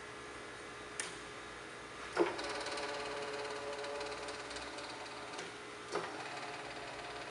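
Chevalier FSG-2A818 hydraulic surface grinder running with a steady mechanical hum. There are sharp clicks about a second in, a little after two seconds and near the end, and after the second click the running gets louder and fuller.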